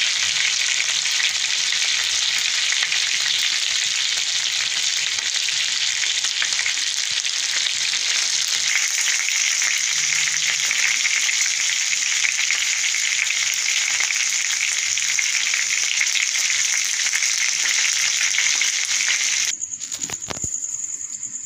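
Marinated chicken leg pieces shallow-frying in hot oil in a nonstick pan: a steady, dense sizzle with fine crackling. It cuts off abruptly near the end.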